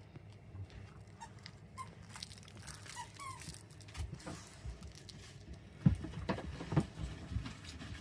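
A dog moving about and scuffling, with light pattering and rustling and a few short faint squeaks. Louder scuffing and thumps come about six seconds in.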